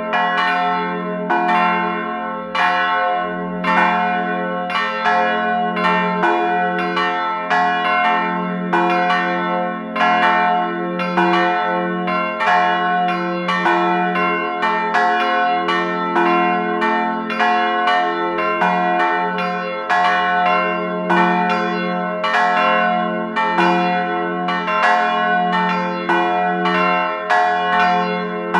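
Church bells pealing: a continuous run of overlapping strokes, about two a second, each ringing on into the next over a sustained low hum.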